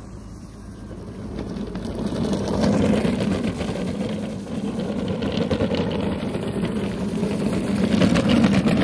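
Six-wheeled rover on hoverboard hub motors driving fast over wet sand: rushing tyre noise with a low motor hum, louder twice as it passes close, about three seconds in and near the end.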